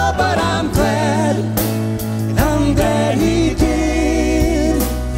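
Church music group performing a hymn: voices singing long held notes with vibrato over steady bass and piano, with a few drum hits.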